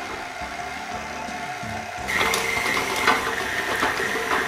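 KitchenAid Artisan stand mixer running, its flat beater creaming chunks of butter in a glass bowl; the motor hum steps up, louder and higher, about two seconds in, with light irregular clicking.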